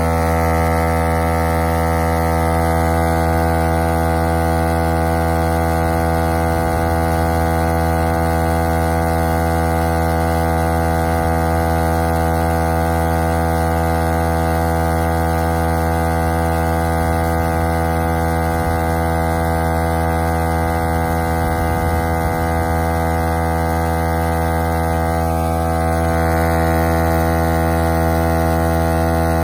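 VIAIR 88P portable 12-volt tire inflator running: a loud, steady, even-pitched hum from its motor and piston.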